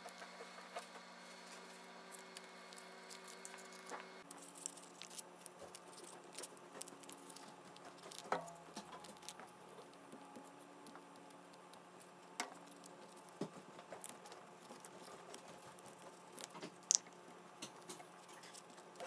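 Faint small taps, rustles and scratches of origami paper squares being handled, pressed and rubbed with a glue stick, with a few sharper clicks, over a low steady hum.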